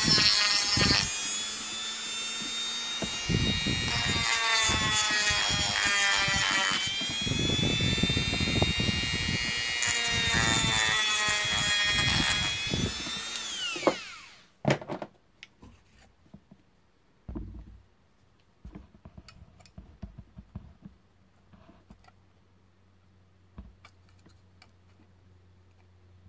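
A power tool cutting through a brass plate, with a high whine over a rough grinding noise. About 14 seconds in it is switched off and the whine falls in pitch as the tool spins down, leaving a few light clicks of handling.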